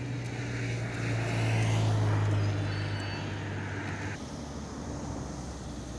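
TGV high-speed trains moving on the tracks: a steady low electric hum with a rushing rumble above it. It swells about a second in, and the hum drops away abruptly about four seconds in.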